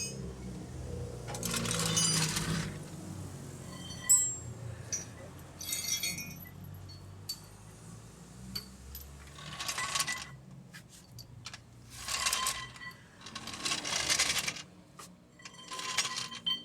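Steel hand tools and parts clinking against metal, with several short bursts of rasping, ratchet-like noise a second or so long.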